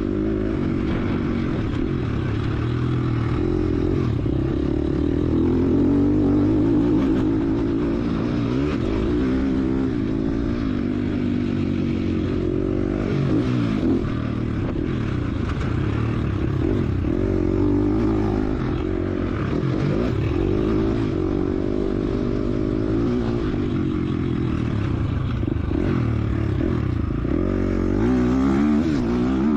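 KTM SX-F 250 four-stroke single-cylinder motocross engine under hard riding, its pitch climbing and dropping again and again as the throttle is opened and rolled off through the lap.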